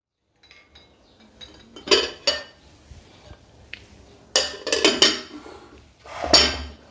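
A plate and a steel bowl clinking together as the plate cover is lifted off the bowl and set back down. There are two sharp clinks about two seconds in, a quick cluster at four and a half to five seconds, and one more loud one near the end.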